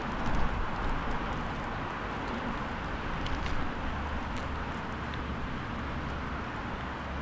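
Marching footsteps of a small squad on tarmac, heard as a few faint, scattered heel strikes. Over them runs a steady outdoor rush with a low rumble.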